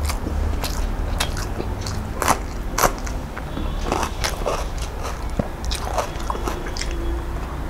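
Close-miked eating sounds of a person chewing a mouthful of rice and dry fish chutney: repeated wet smacks and crisp clicks of chewing, a few louder ones near the middle.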